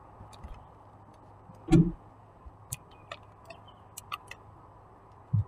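Scattered small clicks and ticks of hands working a rubber band around a soil-filled sock, with a louder soft thump a little under two seconds in and another just before the end.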